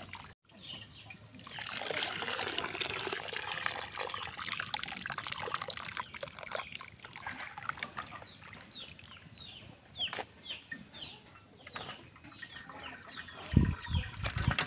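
Boiling rice water trickling and dripping off a perforated ladle as cooked rice is scooped out of a wok and drained. Chickens cluck and peep throughout with short falling chirps, and there are a few dull knocks near the end as the ladle is emptied into a bamboo basket.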